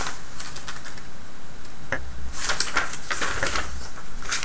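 A folded paper instruction sheet rustling and crinkling as it is handled and unfolded, in a few short spells, the busiest about two to three and a half seconds in.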